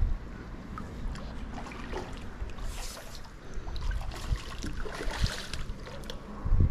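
Water splashing and sloshing at the rocky bank as a hooked catfish churns at the surface, with two brief louder splashes about three and five seconds in.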